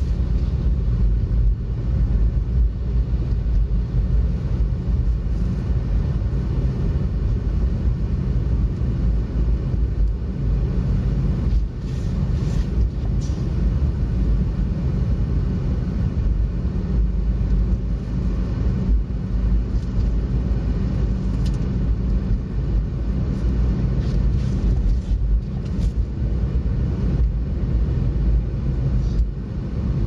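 Steady low rumble of a car's road and engine noise heard from inside the cabin while driving on a snow-covered highway, with a few faint ticks scattered through it.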